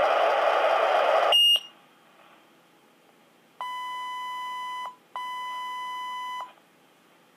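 Minitor V fire pager's speaker: radio static that cuts off with a short high chirp about a second and a half in as the squelch closes. After a pause come two long steady beeps of the same pitch, each about a second and a half, alert tones ahead of the next dispatch.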